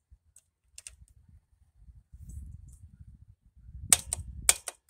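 A few faint clicks, then from about four seconds in a quick run of sharp, loud clicks and knocks over a low rumble.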